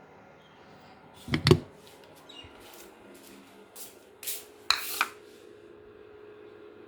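Kitchen handling sounds: a loud knock about a second and a half in, then a few shorter clatters of utensils or dishes around four to five seconds, over a low steady hum.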